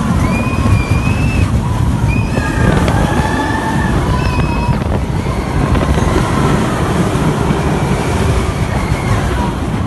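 Riders screaming on the Big Thunder Mountain mine-train roller coaster, several long high screams over heavy wind buffeting the microphone and the low rumble of the moving train.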